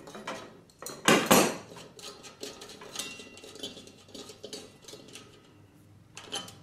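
Steel yard whirligig head clinking and rattling as it is wiggled and handled on its shaft. A loud clatter comes about a second in, then lighter scattered knocks and clicks. The head is wobbly on its shaft, with its lock washers missing.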